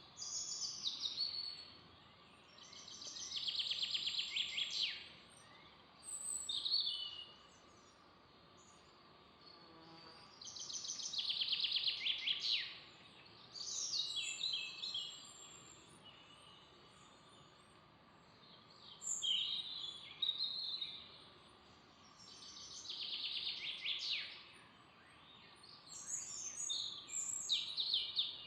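Forest songbirds singing: short phrases of rapidly repeated notes, some ending in a quick downward flourish, repeated every few seconds over a faint steady background hiss.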